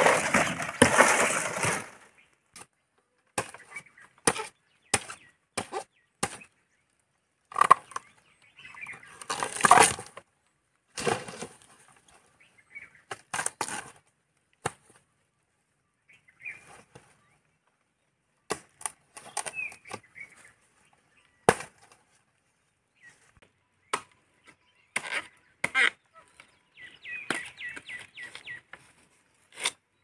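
Fibrous palm leaf bases torn and cracked off a cut palm stem, loud at the start, followed by scattered sharp chops and cracks of a machete cutting into the stem, with quiet gaps between.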